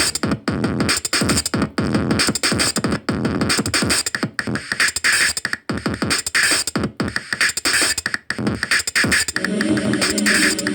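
Electronic music with a fast beat of repeated downward-sweeping hits.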